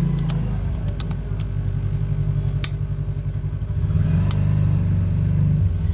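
A steady low machine hum that swells twice, with a few small sharp clicks scattered through it.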